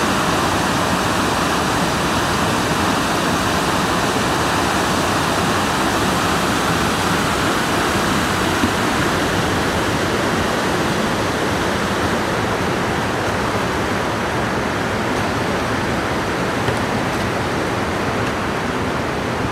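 Steady, loud rush of river whitewater rapids: heavy falling and churning water.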